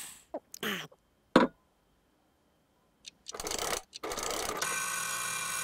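Short cartoon vocal sounds and a sharp click, then after a pause a cartoon alarm clock's mechanical rattle-and-ring, held steady for about two seconds before stopping near the end.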